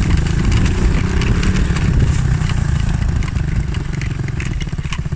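Monkey bike's small single-cylinder four-stroke engine revving, its pitch rising over the first couple of seconds and then holding steady, labouring on a steep climb.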